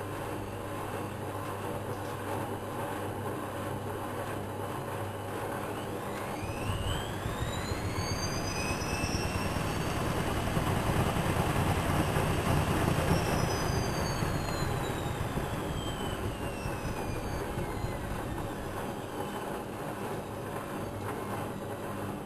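Whirlpool Expert 1000 washing machine's motor whining up in speed and then winding back down, a short spin of the drum, over a steady machine hum. It is loudest while the whine is at its highest, about halfway through.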